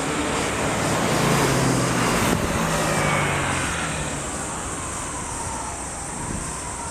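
A motor vehicle passing close by: engine and road noise swells to a peak about two seconds in, with one sharp click there, then fades away as the pitch drops.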